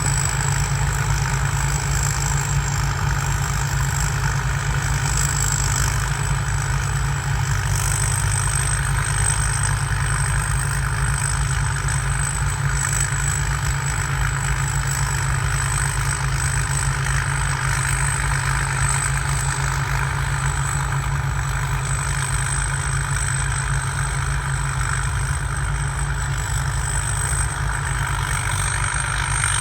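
Diesel engine of a rice combine harvester running steadily under harvesting load, with a steady high-pitched turbocharger whine over the low rumble and the clatter of the threshing machinery.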